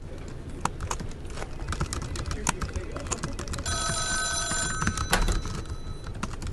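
Room noise with scattered light clicks and knocks, and a brief electronic phone ringtone starting about halfway through, lasting about a second before it fades.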